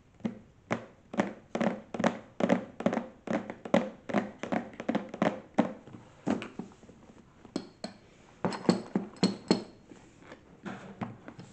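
Hands tapping and drumming on the lid of a cardboard gift box: a quick run of dull thunks, about two or three a second, a short lull about seven seconds in, then a tight flurry of taps and a few weaker ones near the end.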